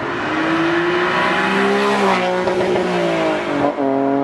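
Honda NSX V6 engine accelerating hard past at high revs. Its pitch climbs for about two seconds, then falls away. Near the end there is a quick break for an upshift, and it pulls again from lower revs.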